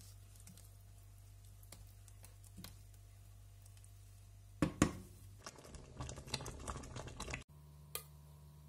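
A wooden spoon stirring a thick, simmering mix of diced apples and cranberries in a stainless steel pot, with a couple of knocks against the pot about five seconds in, followed by a stretch of fast small crackles. A steady low hum runs underneath.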